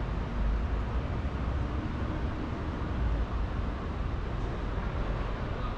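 Steady city street background noise: a continuous low rumble of traffic with no distinct events.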